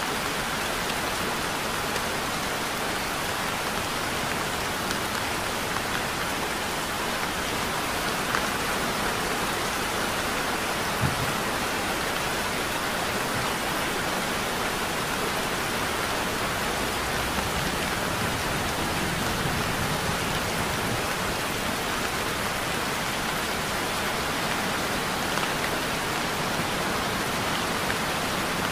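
Heavy rain falling steadily, a dense even hiss with a couple of sharper drop ticks about 8 and 11 seconds in.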